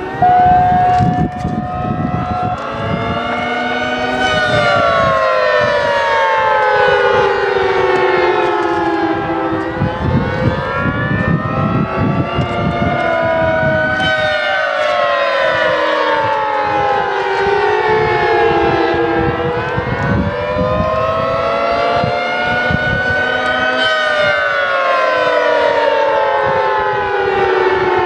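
Federal Signal 3T22 three-tone rotating tornado siren sounding the attack signal: its chord slowly rises and falls in pitch, about once every ten seconds, with heavy echo.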